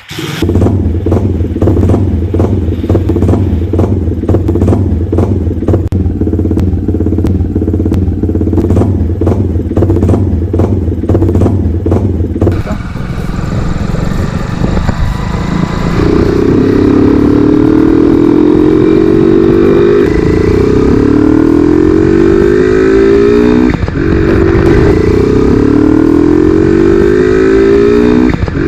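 Motorcycle engine breathing through an aftermarket Moxi 'sound' air filter, which gives it a louder intake note. It runs steadily with an even pulse, then about halfway through the sound changes and the note rises in pitch again and again, each rise lasting about four seconds.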